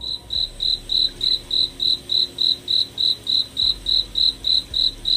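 Cricket chirping sound effect: a loud, very even chirp about four times a second, the stock 'crickets' used to mark an awkward silence.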